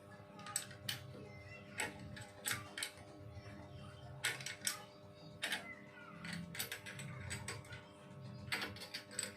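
Irregular sharp metallic clicks and knocks of a machine's mechanism being worked or assembled, over a steady hum.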